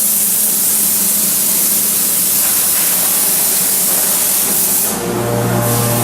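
Kekeisen UBF 3000/15 bed milling machine running with a loud, steady hiss. About five seconds in, a steady motor hum with a higher whine sets in under the hiss.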